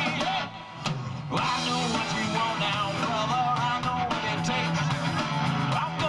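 Live rock band playing electric guitars and drums. The music drops away briefly about half a second in, then the full band comes back in.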